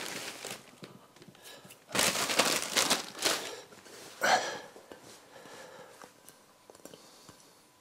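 Thin plastic bag crinkling as ground carp pellet powder is shaken out of it into a bowl: three bursts of crinkling, the loudest about two seconds in.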